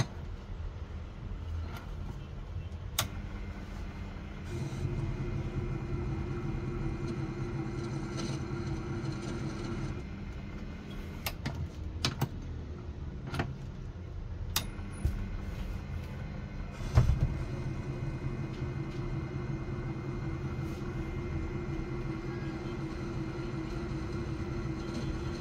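Proxxon mini lathe running, its motor and spindle humming steadily, as a parting tool is fed into a 304 stainless steel bar that it cuts only now and then. The hum grows louder for long stretches, about four seconds in and again past the middle. Several sharp clicks are heard, with one loud knock about two-thirds of the way through.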